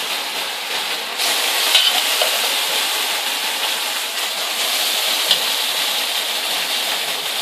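Marinated meat sizzling and frying in a heavy pot of hot browned sugar and oil as pieces are added and moved about, the Trinidad 'burnt sugar' stew method. A steady sizzle with a couple of faint ticks.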